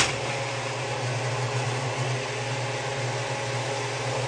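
Steady low hum of a running motor with an even hiss over it, and one short click right at the start.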